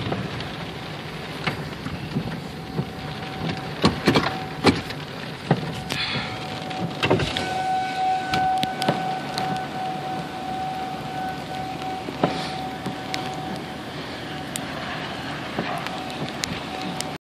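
Rain and wind beating on a car, with scattered drops striking the roof and glass as sharp ticks. Behind it an outdoor tornado warning siren, a Federal 2001-130, holds one steady tone that swells and fades as it rotates, loudest from about halfway in.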